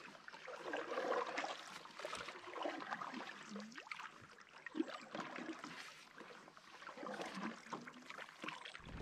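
Water trickling and lapping around a canoe, with small irregular splashes and light knocks.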